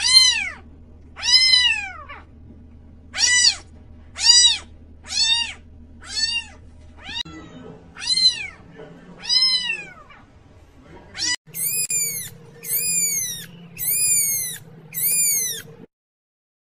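Cats meowing over and over, about one call a second, each meow rising and then falling in pitch. In the last few seconds the calls turn much higher and thinner: newborn kittens mewing. They stop abruptly near the end.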